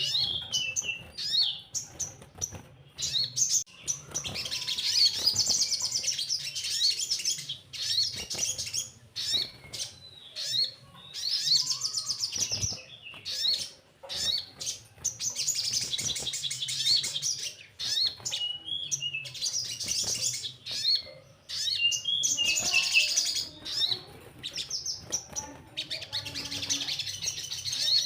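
Sogon, a sunbird, singing: fast, high twittering trills of a second or two each, repeated with short sharp chirps in between.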